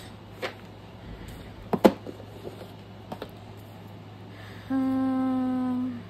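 Light clicks and taps of paper labels and small objects being handled on a craft table, the sharpest about two seconds in. Near the end comes a steady, even-pitched hum about a second long, louder than the handling, over a low electrical hum.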